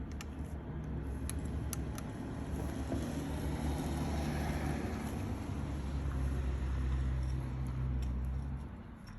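A low engine hum that swells over several seconds and then drops away near the end, with a few light clicks in the first two seconds.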